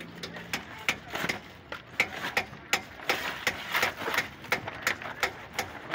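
Hand tools tapping and clinking on the steel hub and nut of a truck wheel: a run of sharp metal taps, a few a second, irregular.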